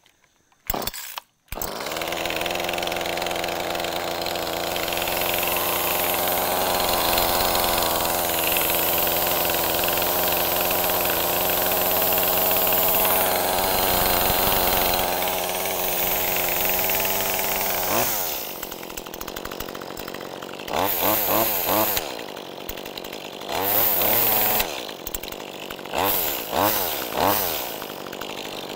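Brand-new Echo CS2511T top-handle chainsaw's small two-stroke engine starting for the first time: it catches on a pull about a second in and runs steadily at fast idle. Around two-thirds of the way through it drops to a lower idle, then it is revved up and back down several times.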